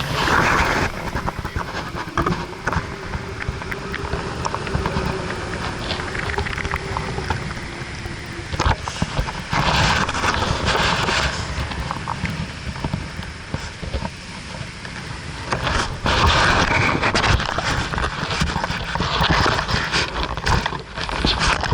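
Strong wind buffeting the microphone, swelling in several gusts.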